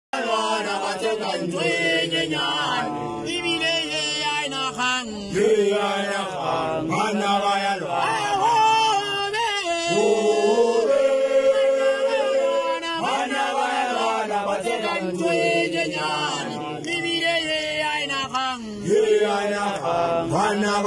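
Group of men chanting and singing together unaccompanied, several voices at once in phrases a few seconds long, with some longer held notes.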